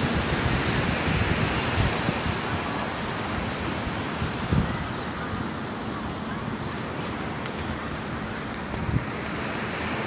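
Steady wash of ocean surf with wind buffeting the microphone in low gusts.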